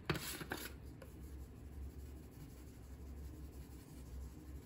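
A few light clicks in the first second, then a spice shaker being shaken over a bowl of cut sweet potatoes, a faint scratchy rattle.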